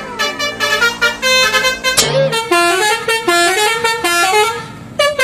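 Multi-note 'telolet basuri' bus horn. It holds chords for about two seconds, then plays a quick tune of stepping notes.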